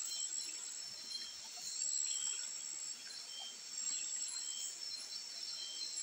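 Night insect chorus: several insects hold steady high buzzing tones, with a short chirp repeating about once a second. Beneath it, faint splashing of water being poured from a plastic cup into an aluminium pot to rinse rice.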